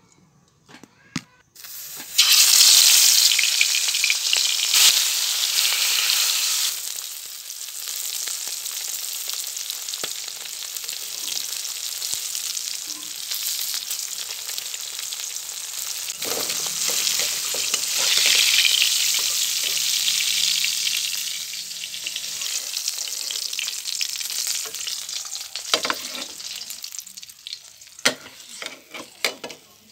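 Marinated fish pieces frying in hot oil in a metal wok. A loud sizzle starts suddenly about two seconds in, settles into a steady frying hiss, and swells again past the middle, with a few sharp knocks of a spatula near the end.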